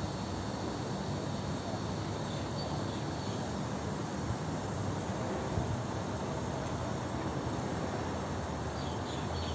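Steady outdoor background noise with a low rumble, and a few faint high chirps about halfway through and near the end.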